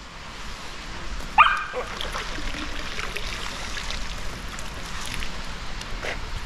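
A dog gives one short, rising whine about a second and a half in, over a low steady hiss. It is a bored, unhappy dog.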